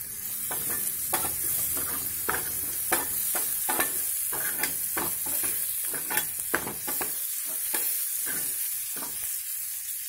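Chopped onion, tomato and green chilli frying and sizzling in oil in a steel frying pan, stirred with a metal spoon that scrapes and clicks irregularly against the pan. The clicks thin out near the end.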